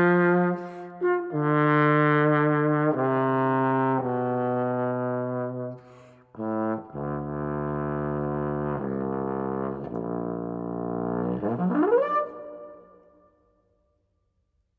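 Solo trombone playing a string of held notes, with a short break about six seconds in, then a fast upward slide glissando near the end that dies away.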